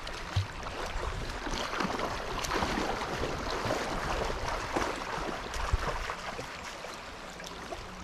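River water splashing and sloshing as a dog swims and a person wades through the current, over the steady rush of the stream, with a couple of dull knocks. The splashing eases off about six seconds in, leaving mostly the flow of the river.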